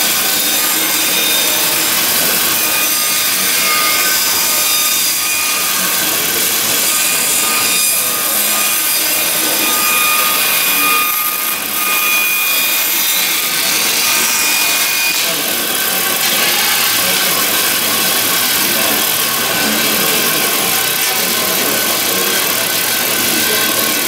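Power tool working timber, a steady unbroken noise with faint high whining tones.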